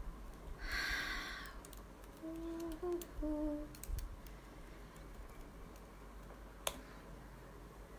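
A woman softly humming a few short notes, stepping in pitch, after a breathy sound about a second in. A single sharp click comes near the end.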